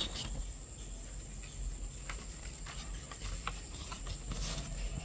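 Steady background noise: a constant thin high-pitched whine over a low hum, with a few faint clicks and rustles scattered through.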